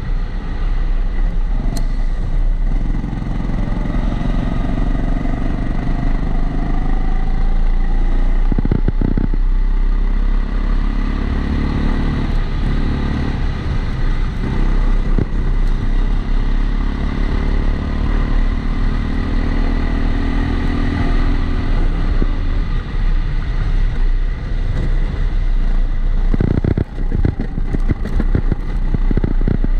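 Onboard sound of a Kombikart Eco rental kart lapping a damp track, its engine rising and falling in pitch as it accelerates out of corners and backs off. Over it runs a steady extra noise that is likely from the camera's protective housing.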